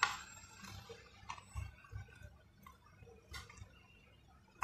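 A few faint clicks and soft taps of a kitchen knife and fingers working a raw shrimp on a wooden chopping board as it is deveined. The sharpest click comes right at the start, with others spaced a second or two apart.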